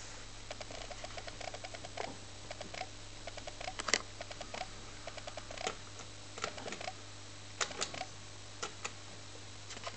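Jukebox mechanism clicking in rapid runs of small ticks over a steady electrical hum. A few sharper clicks come near the end as keypad buttons are pressed.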